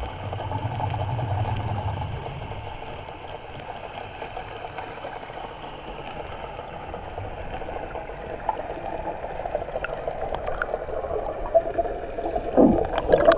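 Muffled underwater noise heard through a waterproof camera housing: a steady wash with a low hum that is louder for the first couple of seconds. Bubbling and sharp crackles build near the end.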